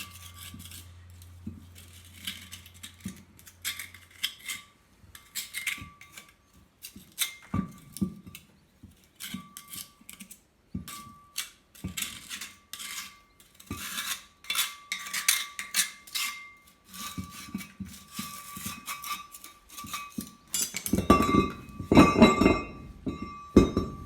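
Metal tool scraping and clinking against the steel drive sprocket of a Bobcat T-190 track loader, chipping packed mud out of its teeth, a rapid irregular run of scrapes and clinks with a high ringing note now and then. Heavier clanks and thumps near the end.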